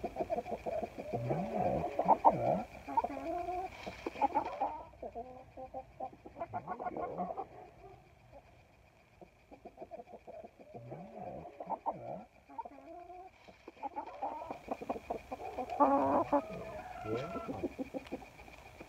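Chickens clucking in short, repeated low calls, coming in clusters with a quieter stretch in the middle.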